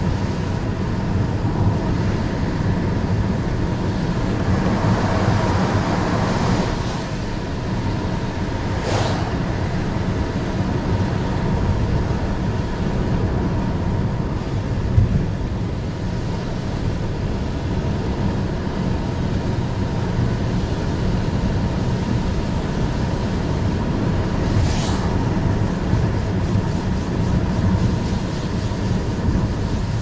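Steady in-cabin road noise of a car driving on a wet road: a low rumble of tyres and engine, with a short hiss twice, about nine seconds in and near the end.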